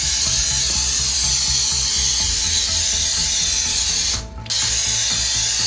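Cooking oil being sprayed onto a metal baking tray to grease it: a steady hiss that stops briefly about four seconds in and then resumes, over background dance music with a steady beat.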